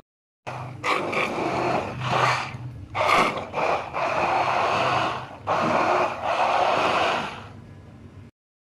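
Electric stick hand blender running in a tall plastic beaker, blending fried onion into yogurt. The motor sound rises and falls as the blade works through the mix, then dies away near the end.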